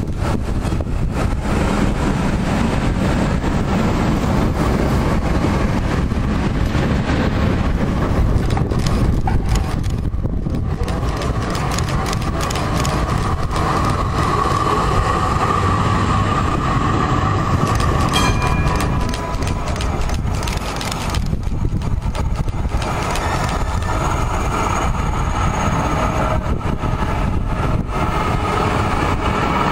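Vintage trams rolling past close by one after another, steel wheels running over street rails. A steady higher tone comes and goes over the rolling noise from about a third of the way in.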